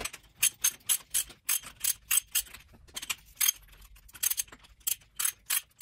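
Ratchet socket wrench clicking as it is worked back and forth on a bicycle suspension fork's threaded air chamber cap: the pawl clicks on each return stroke while the cap is loosened. A quick, uneven run of sharp clicks, several a second.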